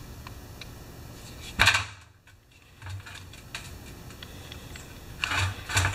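Screwdriver working the small screws out of a Poulan 3816 chainsaw carburetor over a metal parts tray: light metal clicks, with a sharp clack about one and a half seconds in and a couple more near the end.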